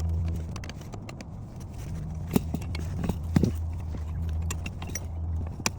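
Metal combination wrench clicking and clinking against a fastener in a handful of sharp, separate knocks while being worked in a tight spot, over a steady low hum.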